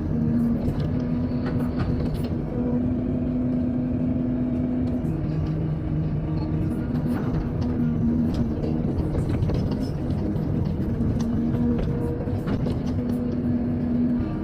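Excavator's diesel engine running steadily, with a hum that swells and fades and scattered light clanks.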